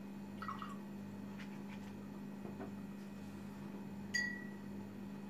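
Painting tools handled at a table: a few faint taps and brush noises, then one sharp clink with a short ring about four seconds in, over a steady low hum.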